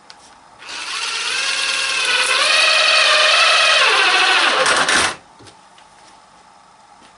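Festool TI 15 cordless impact driver running with its impact switched off, driving a large screw into wood: a steady motor whine that drops in pitch as it slows under load, then cuts off about five seconds in.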